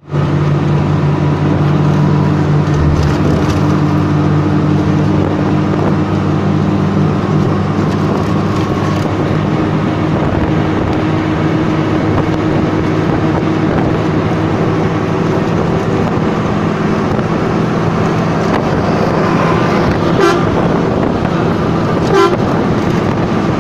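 Steady engine drone and road noise of a moving vehicle, with two brief knocks near the end.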